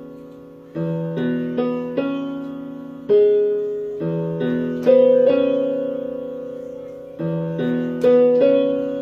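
Piano played slowly: chords struck and left to ring, each fading away before the next, with groups of quicker chords between longer held ones.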